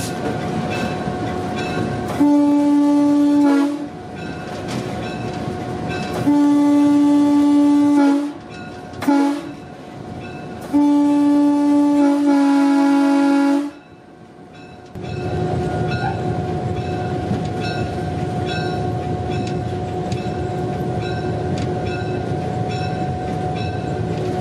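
EMD GP9 locomotive's air horn sounded from inside the cab in the grade-crossing pattern: two long blasts, one short, one long. Between and after the blasts its 16-cylinder EMD 567 two-stroke diesel runs steadily, louder and fuller from about two-thirds of the way in.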